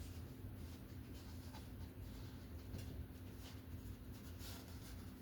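Paintbrush stroking acrylic paint onto a canvas: faint, irregular scratchy brush strokes over a low steady hum.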